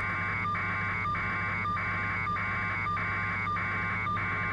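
A repeating electronic tone pattern, a cluster of high tones pulsing about every 0.6 s with a short break between pulses, over a steady low hum.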